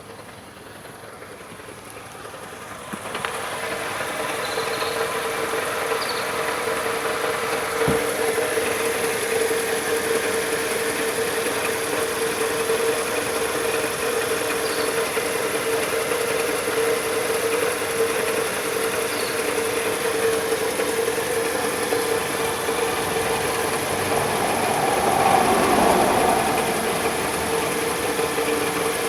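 Nissan NP300 pickup engine running steadily at idle, with a steady droning tone over the engine noise; it gets louder about three seconds in. This is the strange engine noise that the owner cannot identify.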